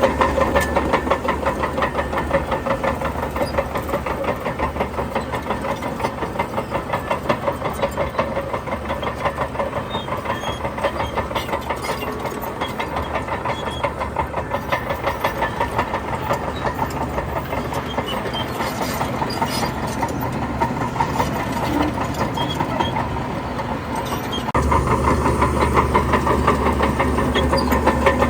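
Heavy diesel engine of earth-moving machinery running with a fast, even knock. It runs a little quieter through the middle, then grows louder again near the end.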